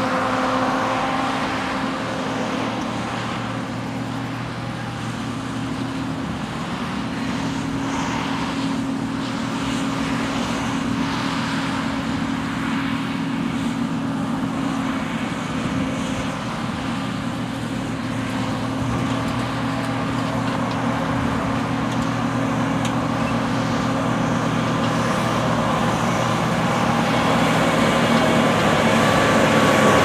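John Deere C670i HillMaster combine harvester running while harvesting wheat: a steady engine drone with several held tones under a rushing noise, growing louder toward the end.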